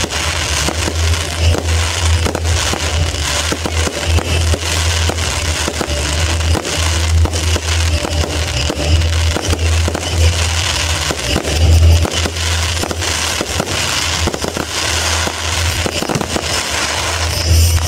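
Fireworks display: aerial shells bursting one after another with dense crackling and bangs, without a pause.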